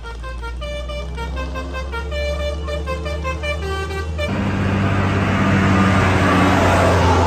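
A telolet-style multi-tone musical horn on a large road vehicle plays a quick tune of changing notes over a low engine hum. A little over four seconds in, the tune stops suddenly and a louder rushing noise with a deep engine rumble takes over, growing toward the end.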